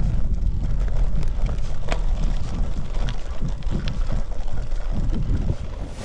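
Wind buffeting the microphone during a cyclocross bike ride on a dirt trail: a steady, fluttering low rumble with a few sharp ticks about two and three seconds in.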